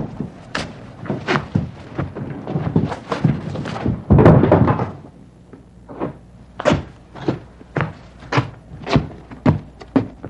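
A string of sharp knocks and thumps, coming about one or two a second. A louder, denser burst of noise lasts about a second, starting about four seconds in.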